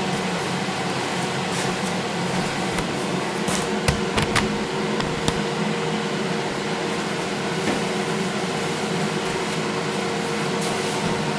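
Steady mechanical hum and hiss of a running motor, like a fan or household appliance, with a few brief clicks about four seconds in.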